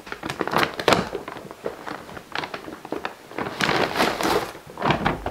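Gift bag and tissue paper rustling and crinkling as the tissue is pulled out, in irregular bursts, loudest about four seconds in.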